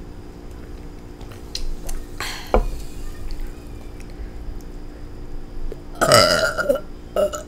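A child burping loudly: a shorter burp a couple of seconds in, then a longer, louder one with a falling pitch about six seconds in.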